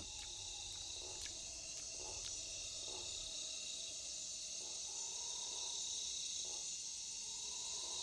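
Steady chorus of night insects: a continuous high-pitched chirring that holds an even level throughout, with a second, higher band above it.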